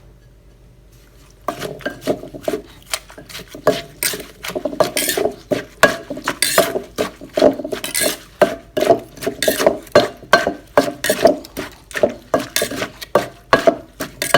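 Pestle knocking in a som tam mortar, pounding and mixing the seasonings at about three strikes a second, starting about a second and a half in.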